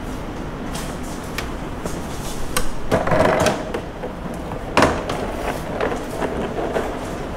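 Plastic food containers handled on a refrigerator shelf: a few light clicks and knocks, a louder clatter about three seconds in, and a sharp clack a little before five seconds, over a steady low background noise.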